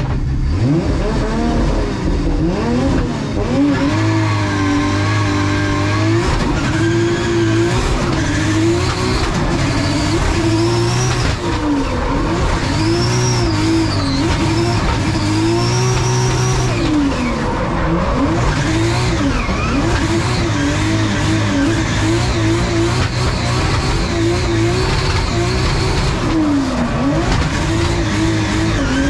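Heard from inside the cockpit: a Nissan S14 drift car with a 2JZ straight-six revving up and down constantly through a drift run, with tyre squeal. In the later part the revs dip and climb in quick, short stabs.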